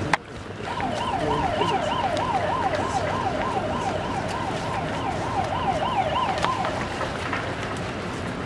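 A distant emergency-vehicle siren in a fast yelp, warbling up and down about three times a second for some six seconds, over steady background noise. There is a sharp click right at the start.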